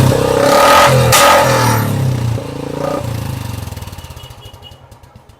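Royal Enfield Bullet single-cylinder engine revved hard through an aftermarket Punjab-style silencer, with a sharp crack about a second in, the exhaust pop the silencer is fitted for. The sound then dies steadily away over the last few seconds.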